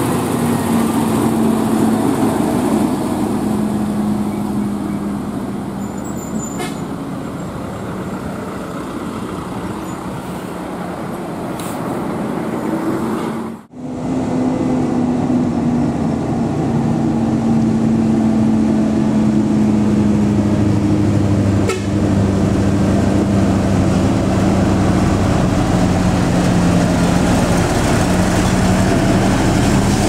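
Heavily loaded trucks' diesel engines labouring slowly up a steep climb, a steady low drone, with a brief drop-out about fourteen seconds in.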